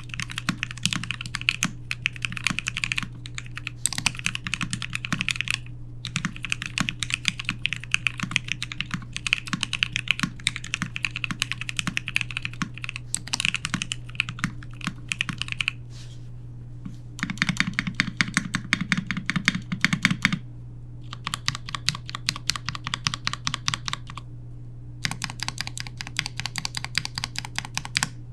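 Typing in bursts on a custom mechanical keyboard (E-White Sunsetter R1) with lubed Marshmallow switches, a stainless steel plate with Poron plate foam, and PBT keycaps. Rapid key clacks come in runs with short pauses between them, and a steady low hum sits underneath.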